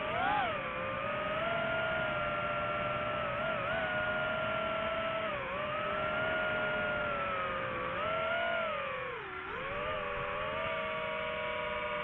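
Drone's motors and propellers whining steadily, the pitch sliding up and down as the throttle changes, with a deep dip in pitch a little after halfway.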